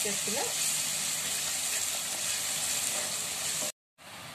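Ginger-garlic paste, chopped onions and green chillies sizzling in hot oil in a nonstick kadai, a steady hiss. It cuts out suddenly for a moment near the end, then comes back a little quieter.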